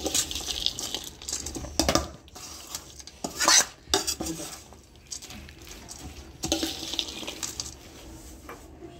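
Steel spoon stirring a dry puffed-rice bhel puri mixture in a stainless steel bowl, scraping and clinking against the metal in irregular strokes, with the loudest clatter about three and a half seconds in.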